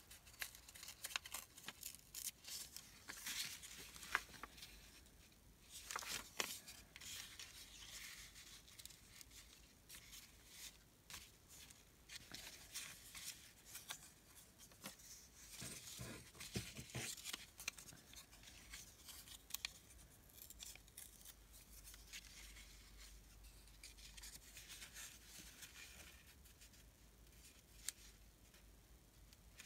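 Small scissors snipping paper as a printed pansy image is cut out: faint quick snips and rustles, coming thickly over the first two-thirds and thinning out after that.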